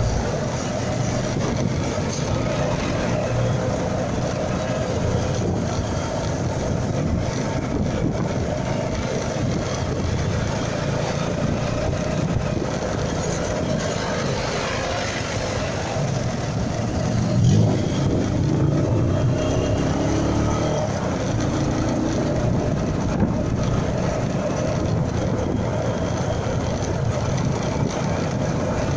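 A motorcycle running in mixed road traffic, with steady road and engine noise. An engine rises in pitch a little past halfway through, as if accelerating.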